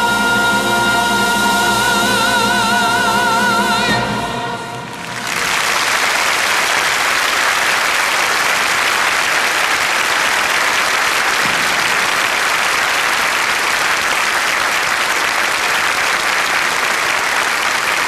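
A choir with accompaniment holds a final chord, the top voices in wide vibrato over steady low notes, and cuts off about four seconds in. After a brief pause an audience applauds, steady and long.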